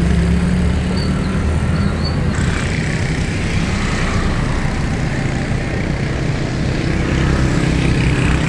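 An engine running steadily amid street noise. The sound changes abruptly a little over two seconds in, as the hum weakens and a hissing noise rises.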